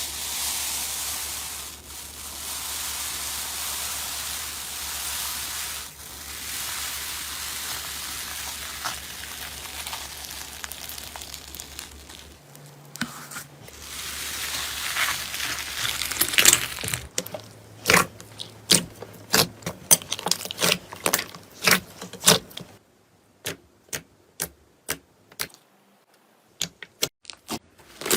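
Slime being worked by hand: a steady hiss of stirring and stretching for the first twelve seconds or so, then a run of sharp pops and clicks that grows sparser near the end.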